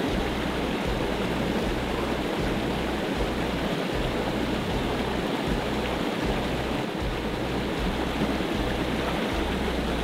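Steady rushing of a small creek's flowing water.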